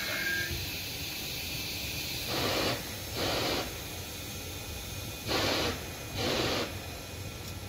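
Short hisses of compressed air being let out from a regional passenger train standing at the platform: four bursts in two pairs, each about half a second long.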